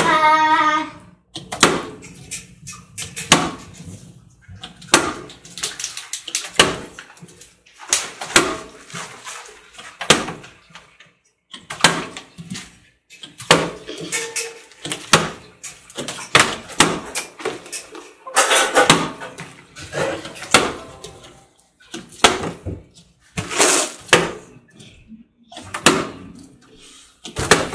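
Plastic water bottle flipped over and over, landing on a glass table-top: a steady run of short clunks and knocks, roughly one every second.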